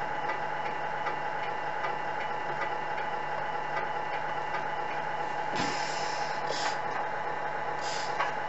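Tamiya MFC-01 sound unit in a Scania R620 model truck playing a truck diesel engine idling steadily through the model's speaker. Short hisses break in at about five and a half, six and a half and eight seconds.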